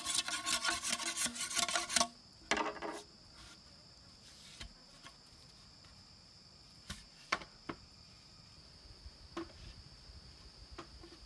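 Machete blade scraping along a green bamboo pole in quick rasping strokes for about two seconds, then one short burst more. After that insects drone steadily at a high pitch, with a few light knocks as bamboo poles are handled.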